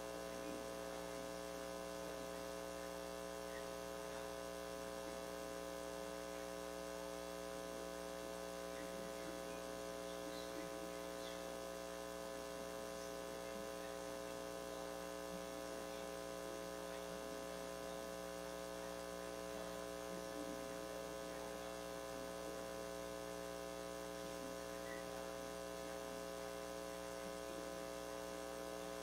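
Steady electrical mains hum with many evenly spaced overtones, unchanging, over faint background hiss.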